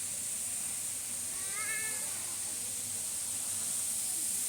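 A single short, meow-like bird call, rising then falling, about one and a half seconds in, over a steady high-pitched hiss.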